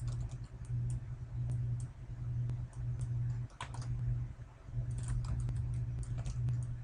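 A computer mouse clicking again and again at an uneven pace, with a low steady hum underneath that drops out a few times.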